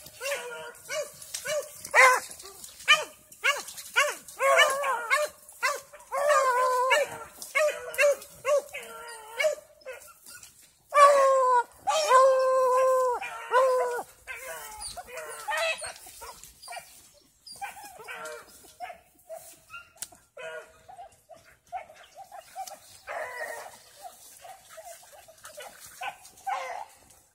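Dogs barking over and over, with a run of long drawn-out howls about halfway through, then fainter, sparser barks toward the end.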